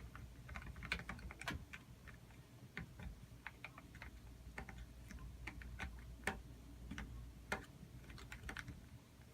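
Spoon clicking and tapping irregularly against a container while stirring glue, shaving cream and food colouring.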